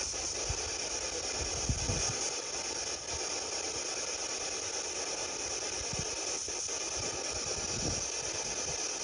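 Steady hissing static with a faint fine crackle, and a few soft low thumps about two seconds in and again near the end.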